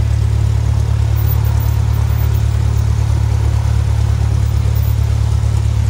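Cessna 172's piston engine and propeller running steadily while taxiing, heard inside the cabin as a loud, even low hum.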